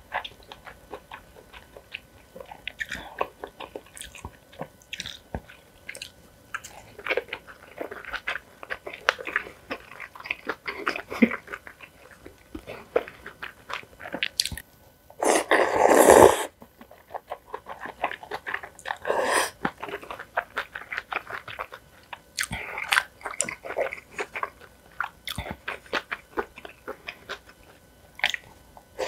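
A person eating close to the microphone: crisp bites and chewing with wet mouth clicks. About halfway through there is one loud rushing noise lasting about a second.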